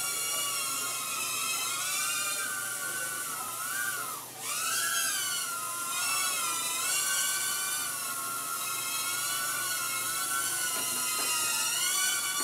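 Estes Proto X nano quadcopter in flight, its four tiny brushed motors and propellers giving a high-pitched whine that wavers up and down in pitch as the throttle changes. About four seconds in the whine briefly drops in pitch and level before coming back up.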